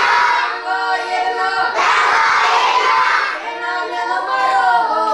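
A class of young children chanting together in unison in a sing-song, their voices held on stepping pitches, with a rougher, shouted stretch about two seconds in.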